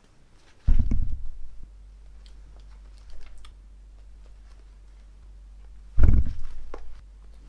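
Sweets tossed up and caught in an open mouth, each catch giving a loud chomp and a brief burst of chewing: once about a second in and again near the end.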